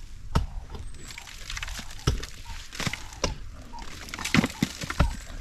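Honeycomb being broken out and handled in a honey harvest: about six scattered knocks and cracks at irregular intervals.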